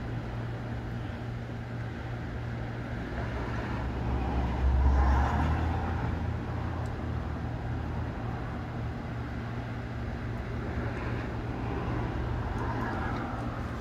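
Strong gusty wind blowing, with a gust buffeting the microphone in a low rumble about five seconds in.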